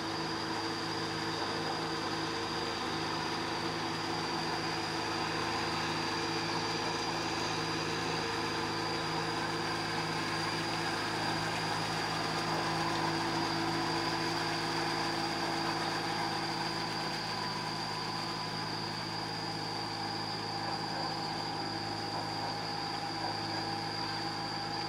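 Diesel farm tractor engines running steadily under load, with no change in pace.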